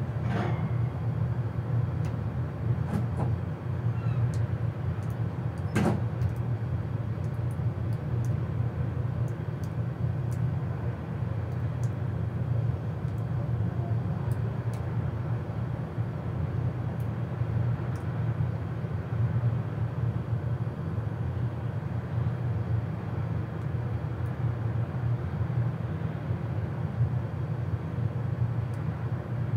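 Steady low engine hum, with a few faint clicks and a sharper knock about six seconds in.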